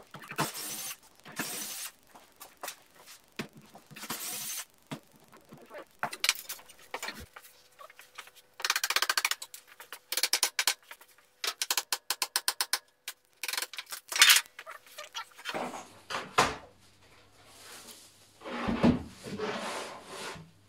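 A cordless drill runs in short bursts, backing out the screws that hold the mold together. Then come runs of rapid metal strikes, a hammer on a chisel knocking the mold boards loose. Near the end there is softer scraping and rubbing as the cast epoxy slab is pulled free of the mold.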